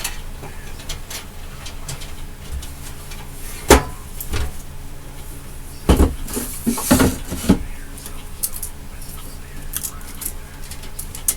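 A sharp knock about four seconds in, then a burst of several knocks and clattering a couple of seconds later, with a few light clicks, over a steady low hum.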